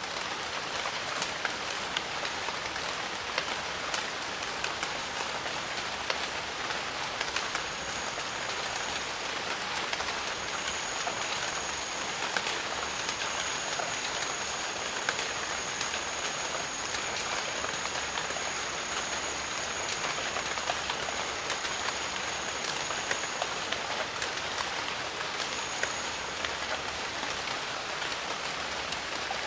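Steady rain falling on jungle foliage, a constant hiss dotted with many small close drop clicks. A thin, high steady tone runs through the middle stretch and returns briefly near the end.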